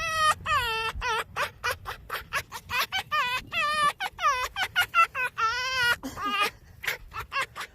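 Fox vocalising: a rapid string of short, high-pitched whining calls, several a second, each bending up and down in pitch, with a brief lull near the end.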